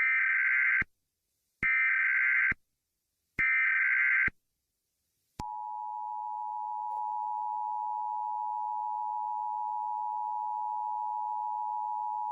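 Emergency Alert System opening: three short bursts of warbling SAME header data tone, each under a second and a little under a second apart. About five seconds in, the steady two-tone EAS attention signal (853 and 960 Hz) starts and holds.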